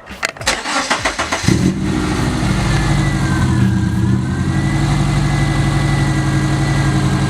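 Subaru Impreza GC8's flat-four engine cranked by the starter for about a second and a half, then catching and settling into a steady idle.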